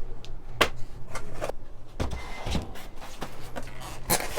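Unboxing packaging and accessories being handled: several separate light clicks and knocks, with a faint rustle and a steady low hum underneath.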